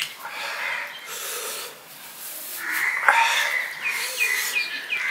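Breathy huffs and mouth sounds from a man eating rice and fish by hand, with a sharp click a little after three seconds in. From near four seconds in, a bird calls rapidly in the background, short high chirps about four a second.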